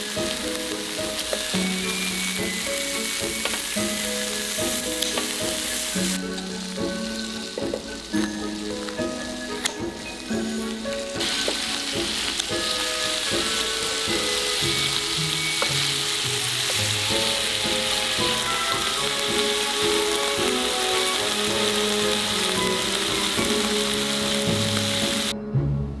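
Sauce-glazed eel pieces sizzling on a hot grill pan, under background music of slow held notes. The sizzling fades for a few seconds around a quarter of the way in, comes back, and cuts off just before the end.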